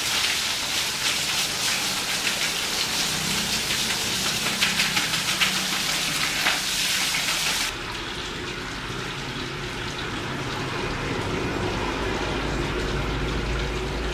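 Water from a pump-fed hose gushing and splashing onto a dog being bathed. About two-thirds of the way in the splashing cuts off suddenly, leaving a lower, steady running noise with a low hum.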